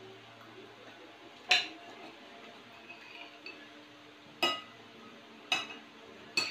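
Spoons clinking against dinner plates while eating: four sharp, ringing clinks at uneven intervals.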